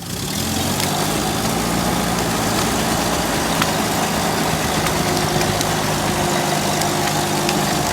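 UAZ off-roader's engine running steadily at low revs, coming up about half a second in, while the vehicle is being winched out of a stream.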